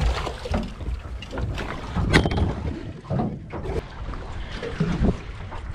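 Wind buffeting the microphone in a small aluminium fishing boat, with a few knocks, the sharpest about two seconds in, as a tuna is brought aboard.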